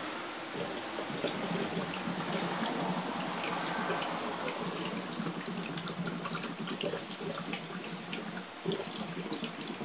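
Gas bubbling through the water in an HHO safety bubbler jar: a steady gurgle made of many small bubble pops.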